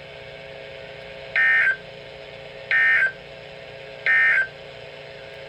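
NOAA Weather Radio sending the SAME digital end-of-message code at the close of a flood warning: three identical short, shrill data bursts about a second and a half apart, over a faint steady hum from the receiver.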